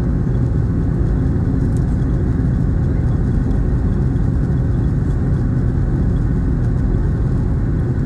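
Cabin noise of a Boeing 737-800 taxiing: a steady low rumble from its CFM56 engines at low power and the aircraft rolling on the taxiway.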